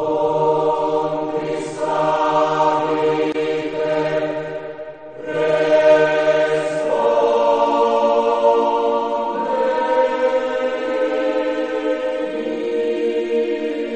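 A choir singing slow, sustained chords as background music, with a short break between phrases about five seconds in.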